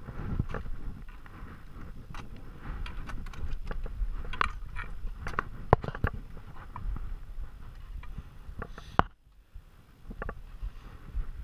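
Scattered scrapes, crunches and knocks of a mountaineer's ice axe on granite and snow as the climber moves up, with sharp knocks about six seconds in and again about nine seconds in.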